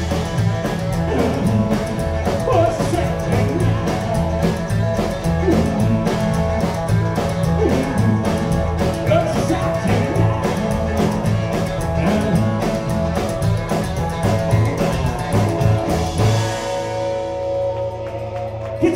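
Live rock'n'roll band, with upright bass, acoustic and electric guitars, drums and a lead vocal, playing the end of a song. About three-quarters of the way through the beat stops and a final chord rings out.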